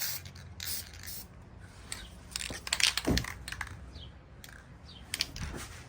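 Aerosol spray paint can hissing in short bursts as black paint is sprayed onto a sway bar, with a knock of handling about three seconds in.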